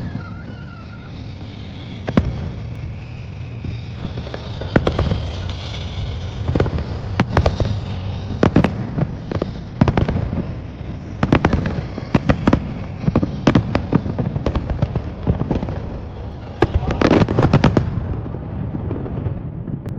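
Fireworks display: aerial shells bursting in irregular bangs, some single and some in quick groups. Near the end comes a dense run of rapid bangs in a finale-like barrage.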